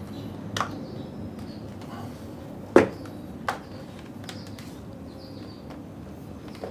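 A snap-on plastic protective case being pried off a MacBook Air: a few sharp plastic clicks and snaps, the loudest nearly three seconds in.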